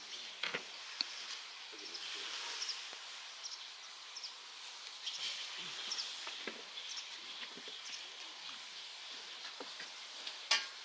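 Outdoor ambience: a steady hiss with scattered short high bird chirps and a few sharp clicks, and a louder crackling rustle near the end.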